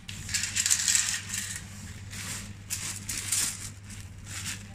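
Coins and crumpled paper slugs being scooped out of a vending machine's metal coin tray into a plastic bag: coins clinking and paper and plastic rustling in several short, irregular bursts, over a steady low hum.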